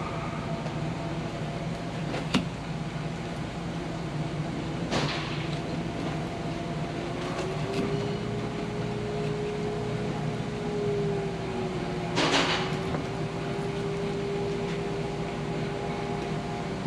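Steady mechanical hum with a held whine, broken by a few short scraping sounds.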